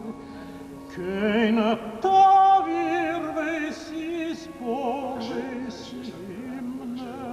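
Singing: a vocal melody with strong, wavering ornaments on each held note.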